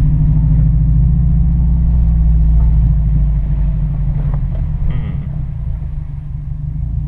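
Car engine running and tyres rolling over a wet dirt trail, heard from inside the cabin as a steady low rumble that eases off slightly about five seconds in.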